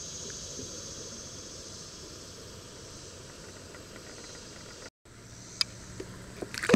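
A steady hiss of outdoor background noise, then a few light knocks and a single loud splash near the end as a released bass goes back into the water beside the kayak.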